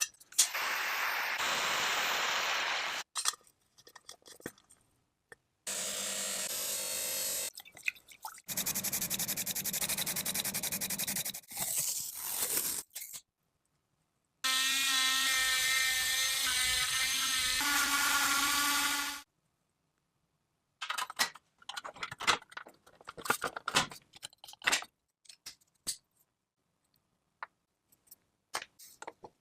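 Workshop tool sounds during a restoration, in short separate passages: several stretches of scraping or abrasive rubbing in the first half, then a small power tool running with a steady whine for about five seconds, and a scatter of light taps and clicks near the end.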